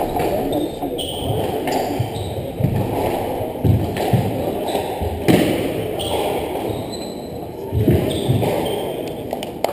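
Squash ball being struck by racquets and slapping off the court walls during a rally: several sharp knocks at uneven intervals, with the hollow echo of the enclosed court.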